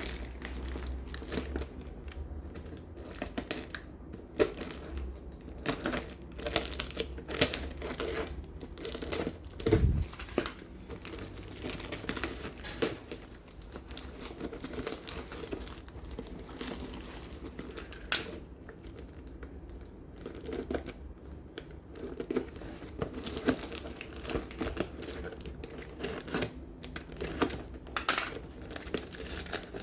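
Packaging being handled and unwrapped: irregular crinkling and rustling with occasional tearing, and a dull thud about ten seconds in.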